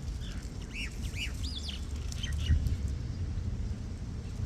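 Birds chirping: a few short, quick calls that sweep up and down in pitch, most of them in the first half, over a steady low rumble.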